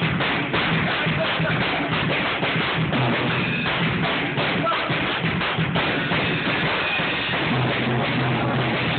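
Music led by a drum kit, drummed continuously with a busy beat and a steady low bass underneath.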